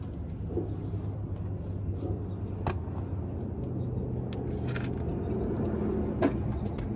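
Semi truck's diesel engine idling steadily, with two sharp clicks, one a little before the halfway point and one near the end.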